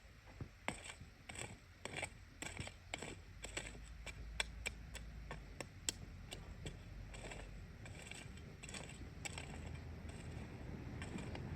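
A series of light, irregular clicks and scrapes, a few a second, with a low rumble growing louder near the end.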